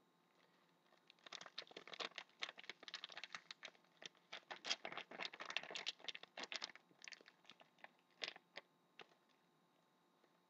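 Trading card packaging being torn open and handled: a dense run of fast, irregular crinkling and crackling for several seconds, then a few separate clicks.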